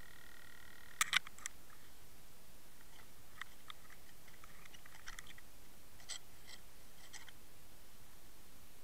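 Scattered sharp clicks and taps recorded underwater: a loud pair about a second in, then looser clusters of smaller clicks over the next six seconds, over a steady hiss.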